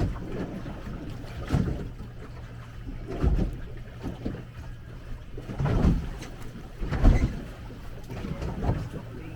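Choppy sea slapping against the hull of a small boat, a low thump every second or two, over steady wind noise.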